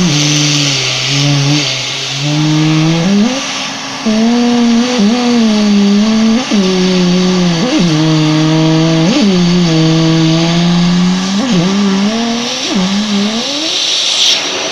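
Running vacuum cleaner hissing steadily, with a buzzing pitched tone made at its suction that wavers and slides up and down, swooping up sharply several times. The tone stops near the end, leaving only the vacuum's hiss.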